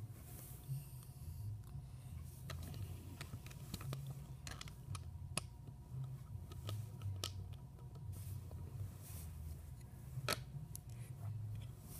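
Plastic Lego bricks clicking as they are handled and pressed onto a Lego plate: a string of irregular sharp clicks, the loudest about ten seconds in, over a steady low hum.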